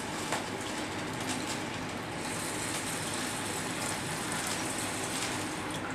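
All-purpose yeast liquid poured in a steady stream from a glass carafe into a stainless steel pressure cooker onto soaked brown rice.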